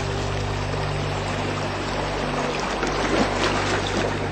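Slow ambient music of sustained low drone notes layered with a steady wash of flowing, trickling water. The water grows louder and more splashy about two and a half seconds in.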